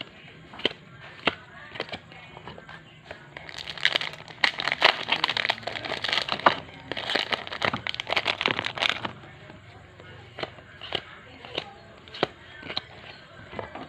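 Yu-Gi-Oh! booster pack wrappers crinkling and tearing as packs are opened, with a dense stretch of crackling rustle in the middle. Sharp single clicks and taps come before and after it as the cards are handled.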